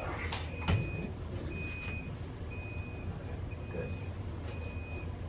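Hospital equipment alarm beeping: a single high tone repeating about once a second. A short knock sounds just under a second in.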